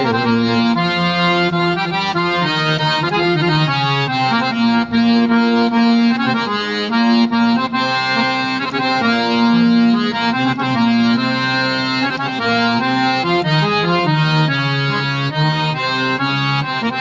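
Harmonium playing an instrumental interlude of a bhajan: steady reed notes stepping through a melody, several sounding at once, with no voice.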